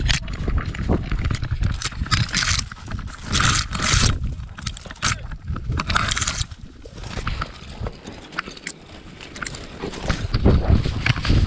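Camera-on-dog sound from a pointer bird dog working through cover: dry grass and brush scrape and rustle against the camera, over a heavy rumble from the dog's moving body jostling the mount. The scraping comes in irregular bursts, eases off for a couple of seconds past the middle, then picks up again near the end.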